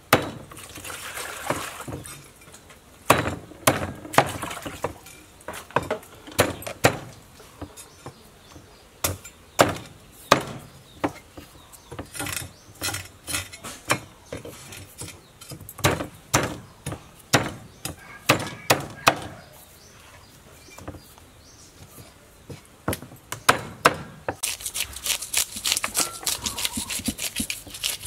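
Cleaver chopping into a large fish on a thick wooden chopping block: sharp, irregular knocks, a few a second. Near the end this changes to fast, dense scraping as the fish's scales are scraped off with a scraper.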